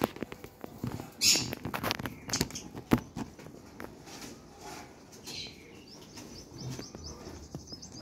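Pet budgerigars chirping in their cage: one falling call midway and a quick run of short high chirps near the end, among scattered clicks and knocks and a brief rustle about a second in.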